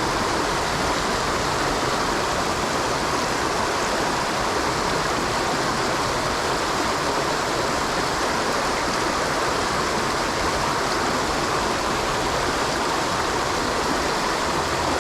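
Creek water rushing steadily through a strong current.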